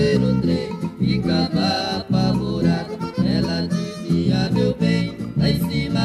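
Brazilian música caipira (sertanejo) song: plucked guitars and accordion playing at a steady beat.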